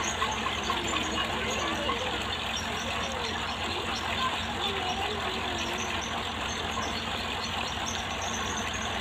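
An engine running steadily, with an even low rumble throughout.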